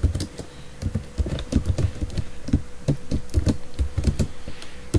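Computer keyboard typing: a quick, irregular run of keystrokes as commands are entered.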